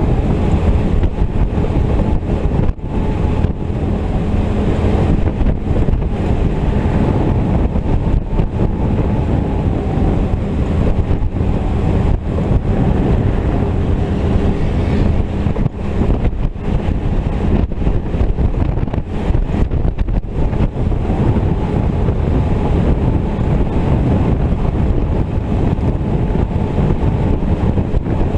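Willys M38 jeep's four-cylinder flathead engine running steadily at road speed, heard through heavy wind buffeting on an open-mounted GoPro microphone on the windshield frame.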